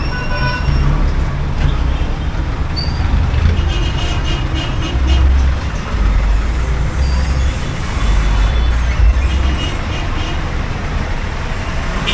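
Road traffic: motor vehicle engines running and passing close by in a loud, steady rumble.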